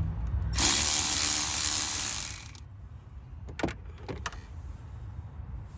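Cordless electric ratchet running for about two seconds, driving down the clamp on the cold air intake's coupler, followed by two sharp clicks.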